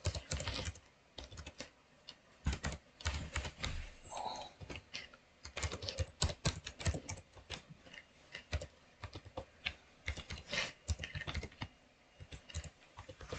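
Typing on a computer keyboard: irregular runs of quick key clicks broken by short pauses.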